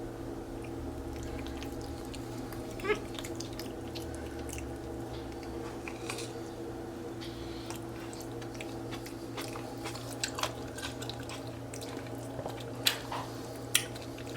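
Capuchin monkey eating a tomatillo, with chewing and scattered light clicks and taps on a plate, a few sharper ones near the end, over a steady low hum.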